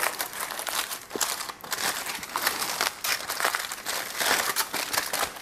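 Aluminium foil crinkling and crackling as gloved hands peel it open from around a wrapped pork loin: a dense, irregular run of crackles.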